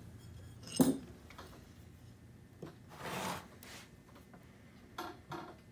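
A thin blade scraping in the seam of a plaster mold block in a few short strokes, the longest about three seconds in. A sharp knock about a second in is the loudest sound.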